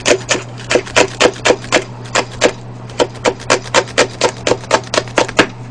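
Chef's knife chopping green onion on a plastic cutting board: quick, even chops about four or five a second, with a short pause a little under halfway.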